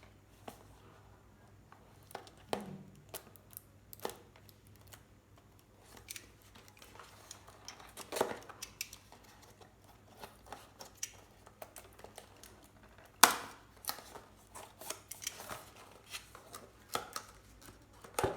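A cardboard product box and its packaging being handled and opened by hand: scattered clicks, taps and short rustles, the loudest a sharp knock about thirteen seconds in.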